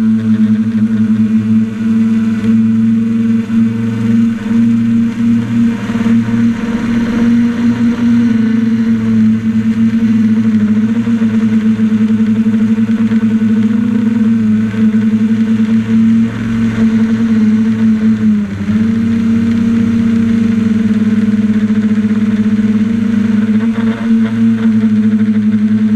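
Drone motors and propellers running at a steady hover-and-cruise pitch, heard loud from the camera mounted on the drone. The hum dips briefly in pitch about eighteen seconds in, then comes back up.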